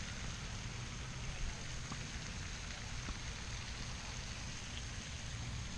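Steady outdoor background noise: a low rumble and a constant high hiss, with a few faint ticks and no clear single event.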